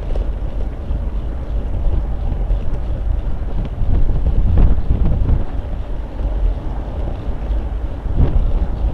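Wind rumbling on a cyclist's camera microphone while riding in road traffic, with a vehicle passing about four and a half seconds in, the loudest moment, and another near the end.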